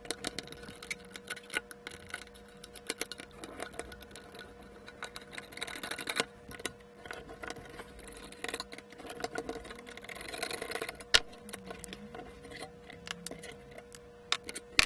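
Large circuit-board mounting screws being turned out by hand, with many small, irregular metallic clicks, taps and scrapes. A faint steady hum runs underneath.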